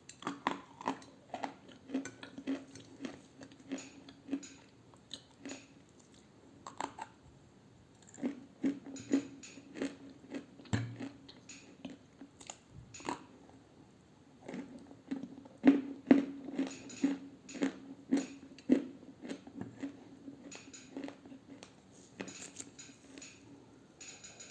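Crunchy bites and chewing of pressed edible clay discs ("pucks"), a run of irregular sharp crunches with short pauses between mouthfuls.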